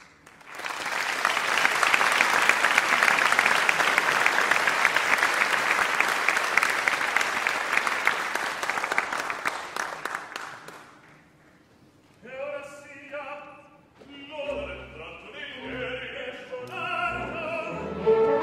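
Theatre audience applauding for about ten seconds, then fading out. After a short pause, a male opera singer comes in with a recitative line over the orchestra.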